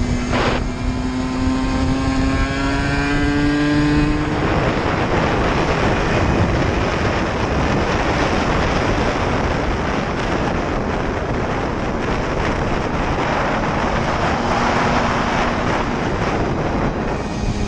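Aprilia RS125's 125 cc single-cylinder two-stroke engine pulling hard, its pitch climbing steadily, with a brief break just after the start. After about four seconds a dense rushing noise drowns out the engine tone and stays to the end.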